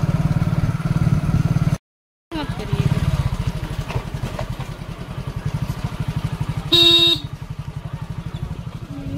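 Motorcycle engine running with a steady low, rapid putter while the bike rolls along slowly, heard from the rider's seat. A single short horn beep sounds about seven seconds in.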